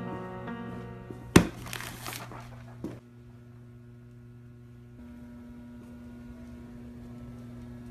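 A sharp knock followed by about a second of crinkling and rustling paper as a stack of magazines and glossy mailers is handled on a wooden bench, with a second light click shortly after. A low steady room hum follows.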